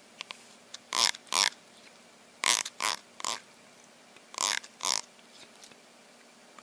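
An animal making short, breathy sounds in groups of two or three, with pauses between.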